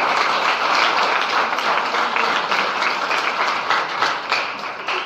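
Audience applauding: many hands clapping in a dense patter that begins to thin out near the end.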